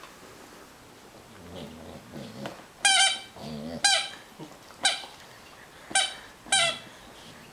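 A squeaky toy elephant squeaking five times in short, sharp squeaks as a border collie bites down on it, with softer mouthing noises before the first squeak.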